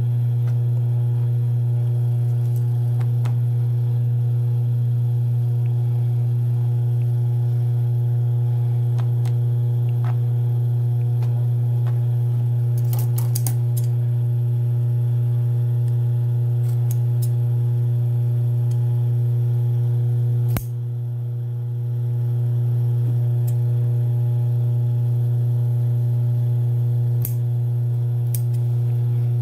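Steady low electrical hum, the loudest sound throughout, with a quick run of scissor snips about 13 seconds in and a few single sharp clicks later on.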